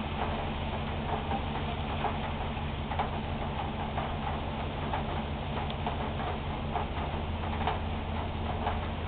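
Heavy rain falling, with drips hitting something hard nearby in irregular sharp ticks, over a low steady hum.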